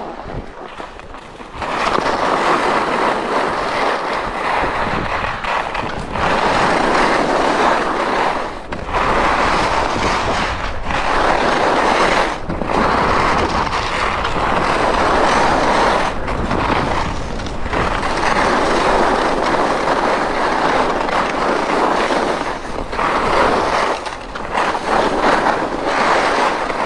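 Skis (HEAD WorldCup Rebels i.Speed) running and scraping over groomed piste snow on a fast descent. The noise is loud and steady for most of the run and drops away briefly several times, as the skis change edge between turns.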